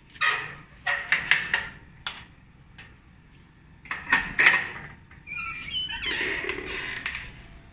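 Back-entrance mesh screen door with a metal grille being handled and opened. There are two bursts of rattling knocks and clanks, then a short squeak about five seconds in, and a second of scraping near the end.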